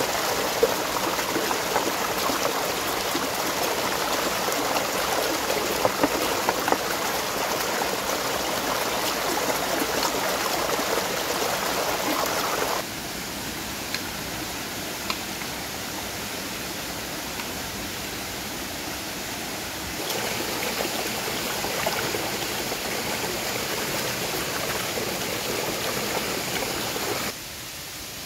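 Forest stream running: a steady rush and gurgle of water that drops sharply in level about halfway through, comes back up, and drops again near the end, with a few faint clicks.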